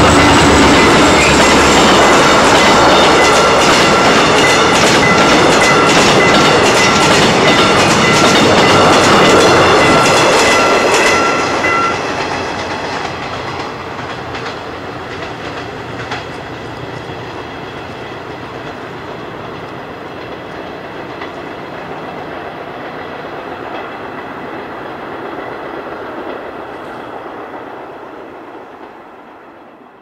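Korail diesel locomotive and its passenger cars passing over a level crossing, the wheels clattering over the rail joints, while the crossing's electronic warning bell rings in a steady repeating ding. About twelve seconds in, the bell stops and the train noise drops away, leaving a quieter steady noise as a car drives over the crossing.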